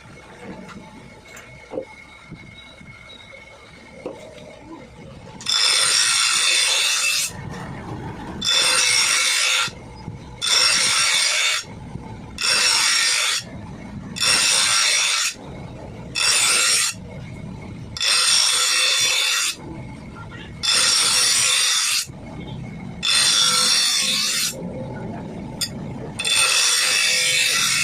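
A metal file scraping along a grass cutter's steel blade in slow, even sharpening strokes. There are about ten strokes, each lasting a second or two, and they begin about five seconds in after a few light clicks.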